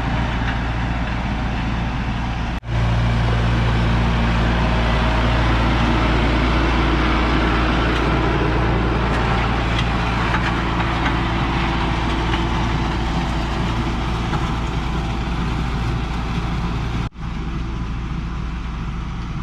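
A heavy vehicle engine running steadily, cut off abruptly twice by edits: about two and a half seconds in and again near the end.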